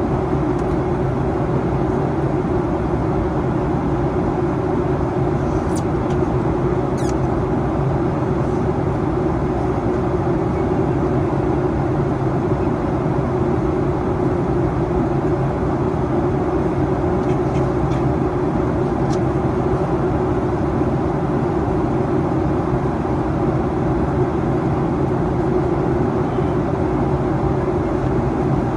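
Steady cabin roar inside a Boeing 737-800 in descent: engine and airflow noise with a constant low hum, and a few faint ticks.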